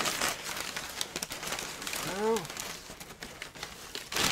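Brown kraft packing paper crinkling and rustling in irregular bursts as it is pulled out of a cardboard box. About two seconds in there is a brief pitched hum that rises and then falls.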